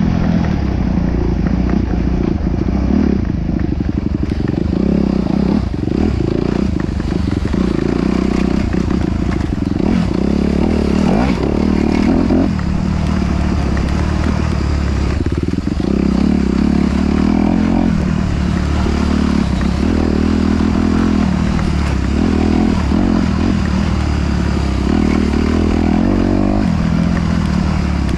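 Off-road vehicle engine running continuously under changing throttle, its note rising and falling. Rattling and knocking from the vehicle over rough ground runs through it.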